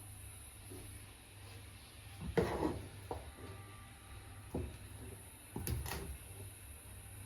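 A few knocks and clatters of kitchen utensils and cookware being handled, the loudest about two and a half seconds in and another pair near six seconds, over a steady low hum.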